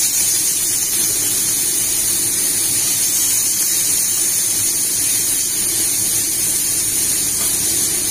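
Freshly drained fusilli sizzling in hot garlic oil in a frying pan: a loud, steady hiss.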